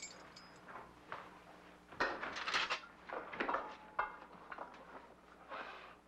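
Irregular knocks, bumps and rattles of a door and a canister vacuum cleaner and its hose being handled, with louder clusters of clatter about two and three and a half seconds in.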